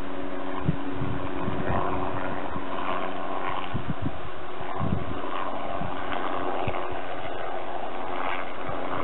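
Spraying helicopter's engine and rotor running steadily at a distance as it flies low over the field, with wind buffeting the microphone in low thumps.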